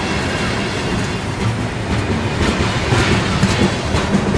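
Freight train of coal hopper cars rolling past at track level: a steady rumble of steel wheels on rail, with clacks as the wheels cross rail joints, a little louder in the second half.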